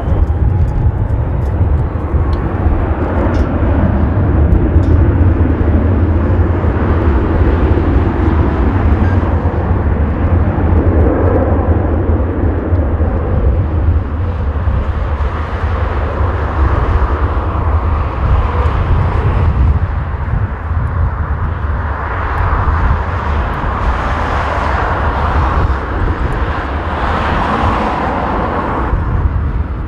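Airbus A350-1000's twin Rolls-Royce Trent XWB-97 turbofans running at taxi power, a steady jet rumble heard from outside the airfield. A hissing whoosh swells and fades a few times in the second half as the airliner turns.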